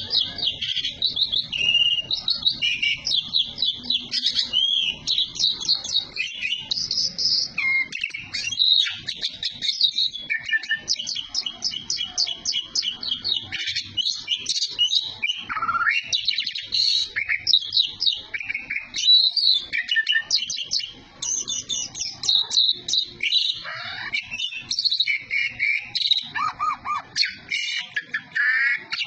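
Asian pied starling (jalak suren) singing a long, varied song of rapid chirps, trills and whistled glides, hardly pausing.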